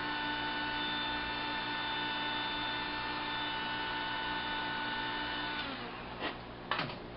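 Electric heat gun running with a steady electric whine and hum, switched off about five and a half seconds in, followed by two short knocks.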